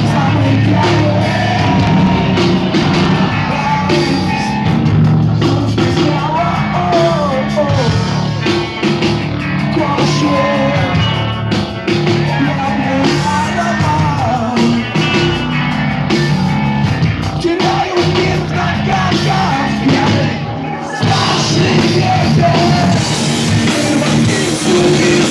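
Heavy rock band playing loud and live, a dense wall of band sound, with a short break in the music about four-fifths of the way through.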